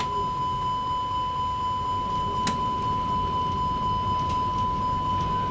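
A steady high-pitched electronic tone held without a break over the low, even rumble of an Airbus A320 flight simulator cockpit, with a single sharp click about halfway through.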